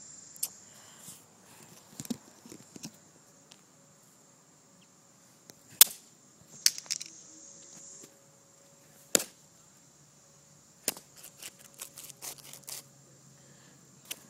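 Scattered sharp clicks and knocks, the loudest about six seconds in and a quick run of them near the end, over the steady high chirping of crickets.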